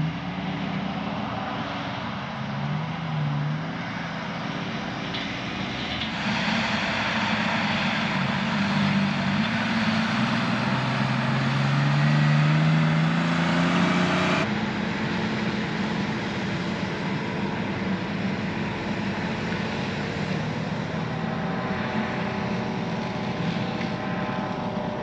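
Heavy diesel truck engine running under load with rattle and road noise, its pitch climbing steadily as it accelerates about halfway through. The sound changes abruptly twice, at about 6 and 14 seconds in.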